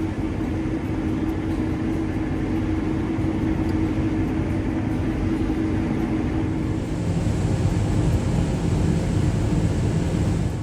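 Combine harvester running steadily while cutting field peas: a continuous engine and machinery drone with a steady hum, swelling slightly after about seven seconds.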